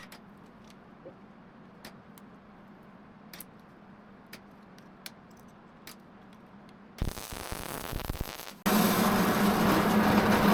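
Welding a nut onto a broken bolt: after a few faint clicks, a short rough burst of arc about seven seconds in, then from about nine seconds a loud, steady hissing arc with a low hum.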